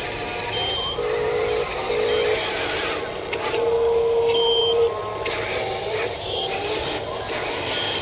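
Huina RC wheel loader's small electric motors running as it drives over gravel with its bucket down, with short repeated electronic beeps and one longer steady tone about halfway through.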